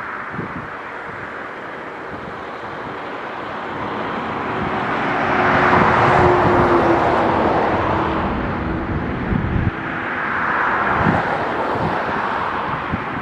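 Road traffic passing close by, swelling as vehicles go past about halfway through and again near the end, with wind buffeting the microphone.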